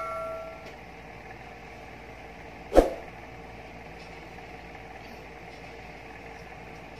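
A bell-like ding fading out at the very start, then a steady faint hum of room noise broken by one sharp click about three seconds in.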